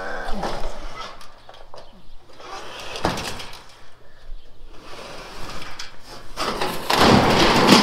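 A long sheet of old corrugated tin roofing pushed by hand and sliding off a roof: a sharp metal clank about three seconds in, then a loud, harsh scraping rush near the end as the sheet goes over the edge.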